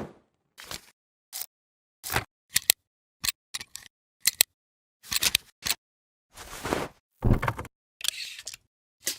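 A string of separate camera-style transition sound effects: short sharp shutter-like clicks and rattles, each cut off into silence. From about five seconds in they become longer, fuller noisy swishes.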